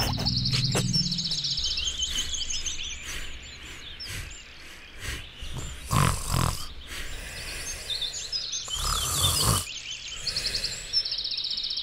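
Forest ambience of birds chirping and trilling. Over it, the cartoon monkey dozing on the branch lets out two grunts, a double one about six seconds in and a breathy one about nine seconds in.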